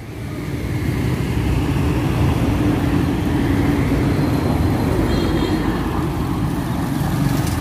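Road traffic running steadily along the street, with motorbike and car engines in it. It swells in over the first second and then holds as a loud, even rumble.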